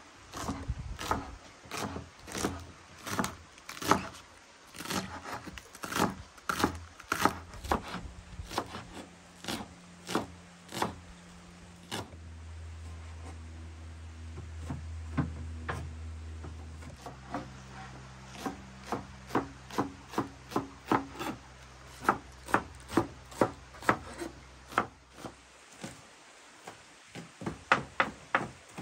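Kitchen knife chopping green onions on a wooden cutting board: a run of sharp knocks as the blade strikes the board. The cuts slow for a few seconds mid-way, while a low steady drone that shifts pitch twice runs under the middle part.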